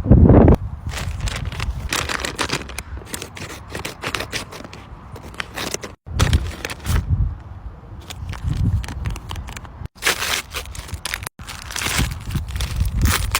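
Paper crinkling, tearing and rustling as paper blind bags are handled and opened, broken off abruptly by cuts a few times. A loud low thump at the very start.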